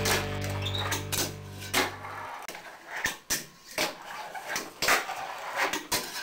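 A held rock-music chord dies away about two seconds in, followed by a string of irregular sharp clacks, about ten of them: a fingerboard's small deck and wheels knocking on a hard surface.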